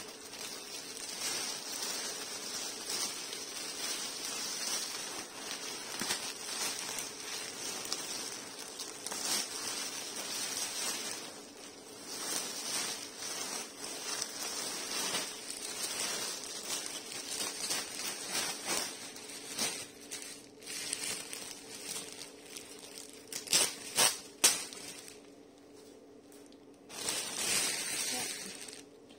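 Clear plastic wrap and foam sheeting rustling and crinkling as they are handled and wrapped around a bundle, with a few louder sharp clicks a little before the end.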